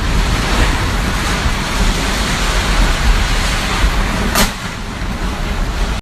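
Storm-force typhoon wind gusting hard, buffeting the microphone with a heavy low rumble. There is a sharp knock about four and a half seconds in.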